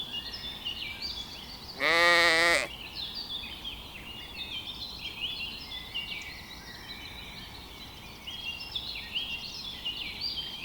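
A sheep bleats once, a single wavering call lasting under a second about two seconds in, over steady high-pitched chirping of small birds.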